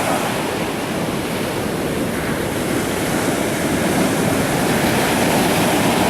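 Pacific Ocean surf breaking and washing up a sandy beach: a steady, loud rush of water that swells a little in the second half.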